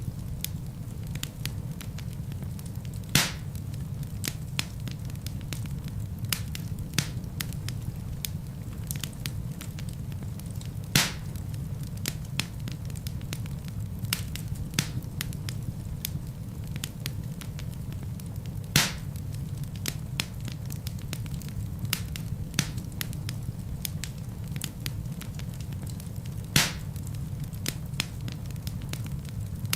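Wood fire burning in a fireplace: a steady low rumble of flames with frequent small crackles, and four louder pops spread through.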